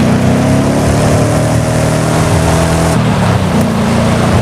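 Electronic engine sound from a toy steering wheel: a loud, buzzing engine note that holds steady and then shifts pitch in steps about three seconds in.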